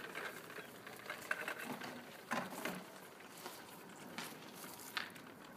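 Plastic toy bubble lawn mower pushed over grass: faint rattling with a few sharp clicks.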